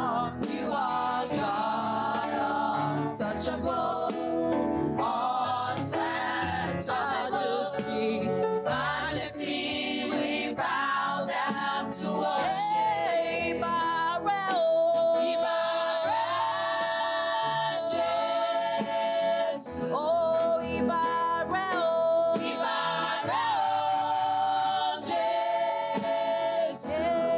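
Women's choir singing a gospel worship song, with long held notes through the middle.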